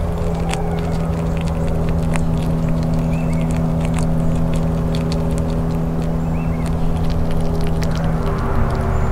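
Steady mechanical hum from a window air-conditioner unit, with sharp little clicks of a gray squirrel cracking and chewing a peanut close to the microphone. Two faint high chirps come about three seconds in and again about six and a half seconds in.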